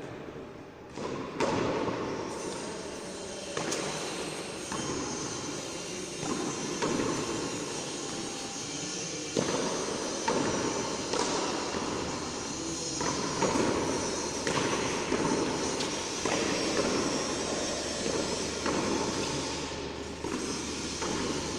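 Repeated sharp smacks of a frontón ball striking the wall and court, coming irregularly every second or two over a continuous background din.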